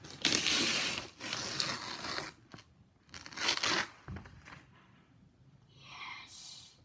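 Gift wrapping paper being torn off a present in two rips: a long one lasting about two seconds, then a shorter one about three seconds in.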